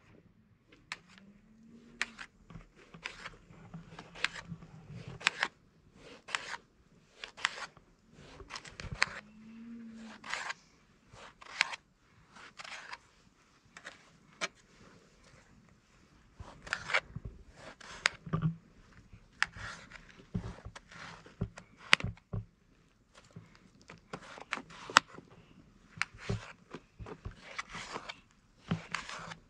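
Irregular short scrapes and clicks, one or two a second, with two brief low rising-then-falling tones, one near the start and one about nine seconds in.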